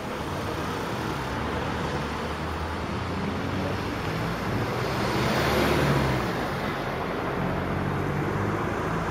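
City road traffic: a steady rumble of passing motor vehicles. One vehicle goes by closer and louder about five to six seconds in, then fades back.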